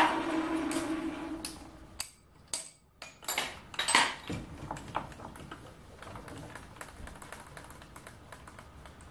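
Metal lathe spinning down after being switched off, with its faceplate fly cutter turning; its running hum fades away over the first two seconds. Then a few sharp metallic clinks and knocks come between about two and five seconds in, followed by faint ticking.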